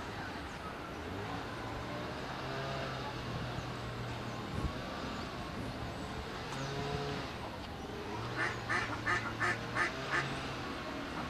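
A duck quacking about six times in quick succession about eight seconds in, over a faint low hum.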